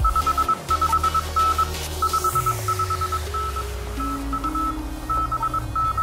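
Morse code (CW) signal on the HF radio: a single high beeping tone keyed in quick dots and dashes, over background music with sustained low notes.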